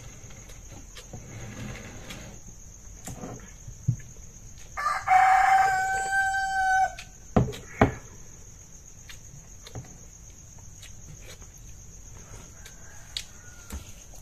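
A rooster crows once, a single call of about two seconds, about five seconds in. It sounds over a steady high insect trill, and two short knocks follow just after it.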